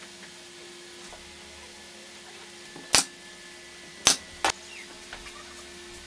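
Three sharp wooden knocks, the second and third close together, as small pine sticks of a bird house are knocked together while being set in place.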